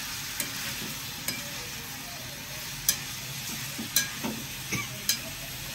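Diced pumpkin sizzling in oil in a kadhai while a steel spatula stirs it, the spatula clicking and scraping against the pan about seven times over a steady sizzle.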